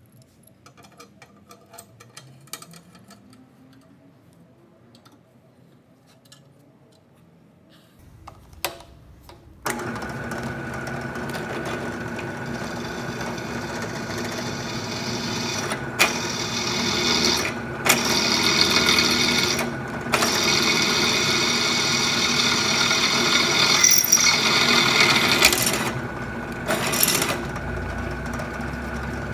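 Bench drill press (Schulz FSB 16 P) running and drilling a hole through a metal workpiece, a steady motor hum with the bit cutting. The first seconds hold only small clicks and knocks; the motor comes on about eight seconds in and the cutting goes on, louder in the middle, with two short breaks.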